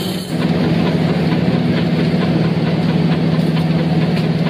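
An engine running steadily: a low, even hum with a faint regular ticking about three times a second.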